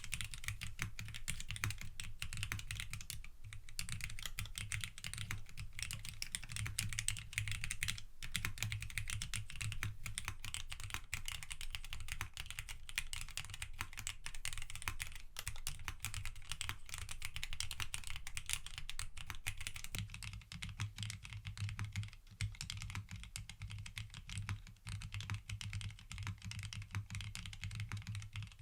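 Continuous typing on a Mode Envoy custom mechanical keyboard with factory-lubed TTC Titan Heart linear switches, PBT keycaps and an FR4 plate with no foam. The key presses and releases come in a dense, steady stream, low-pitched and quiet, with a few brief pauses.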